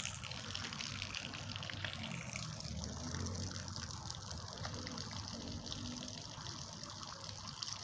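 Water running steadily from an outdoor wall tap and splashing onto wet ground as a small child rinses his feet under it.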